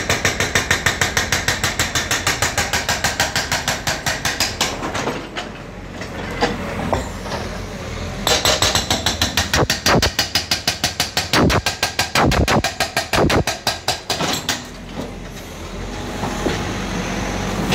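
Hydraulic breaker on a JCB backhoe loader hammering into a concrete road in rapid, even blows. It stops about five seconds in, starts again about three seconds later, and stops again near the end, leaving the backhoe's diesel engine running.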